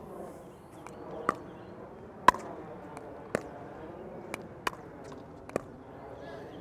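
A plastic pickleball knocked back and forth in a short net exchange: sharp, hollow pocks off the paddles and court, about one a second.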